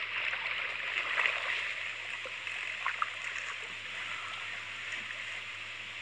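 River water churning and sloshing at the bank, loudest in the first second, then settling into a steady wash of moving water. A couple of faint ticks about halfway through.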